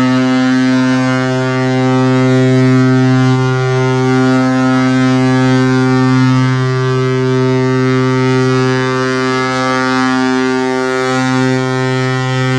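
A ship's horn sounding one long, steady, low blast.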